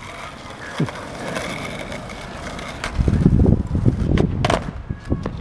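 Skateboard wheels rolling on asphalt, growing into a louder rumble about three seconds in, then two sharp clacks of the board hitting the street about four seconds in: a trick landed with the back foot off the board.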